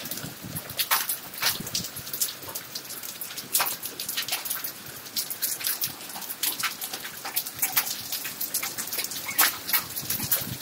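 Hail mixed with rain falling on a concrete rooftop: a dense, irregular patter of sharp ticks from hailstones striking the wet surface, with a few louder hits.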